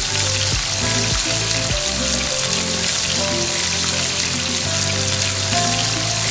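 Spice-marinated chicken pieces sizzling in hot oil on a flat tawa, a steady frying hiss, with background music underneath.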